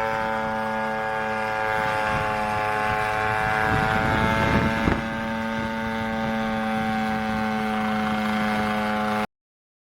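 Unmanned helicopter's engine and rotors running steadily, a hum with a high whine made of several steady tones. The sound changes suddenly about five seconds in and cuts off abruptly near the end.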